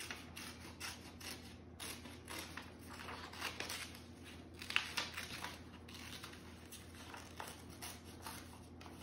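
Scissors snipping through a sheet of white paper in a run of short, irregular cuts as a round shape is cut out, with light rustling of the paper; one snip about five seconds in is louder.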